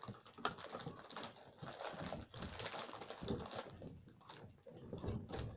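Irregular crinkling and crackling of a plastic snack packet being worked at with the mouth, with scattered small clicks.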